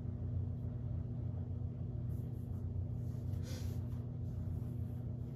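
A steady low hum, the room's background, with a brief faint rustle of fabric about three and a half seconds in as the skirt is adjusted.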